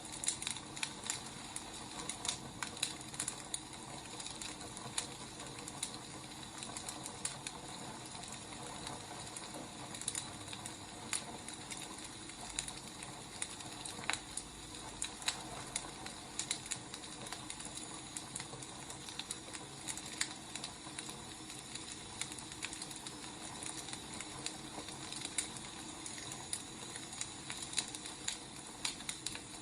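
Wood fire burning: irregular crackles and pops over a steady hiss.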